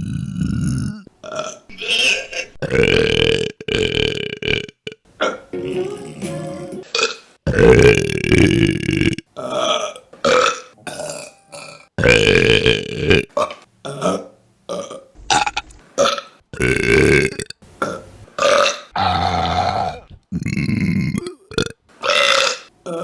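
Women burping, one clip after another: a long series of separate burps, some short and others long and drawn out for a second or more, with brief gaps between them.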